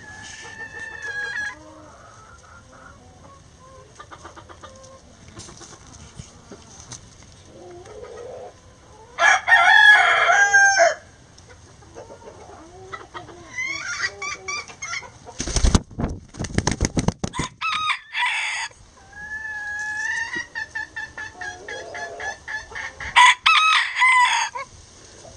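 Bantam roosters crowing, crow after crow, with the loudest about ten seconds in and close up near the end. A quick run of sharp knocks comes about midway.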